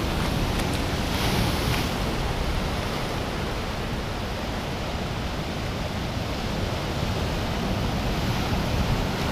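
Ocean surf breaking on rocks and washing through a tide pool: a steady rushing of water, with a brief brighter wash a little over a second in.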